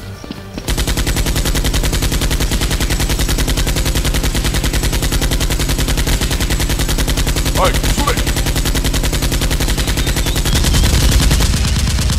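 Rapid automatic gunfire sound effect: an unbroken, even stream of shots that starts just under a second in and keeps going.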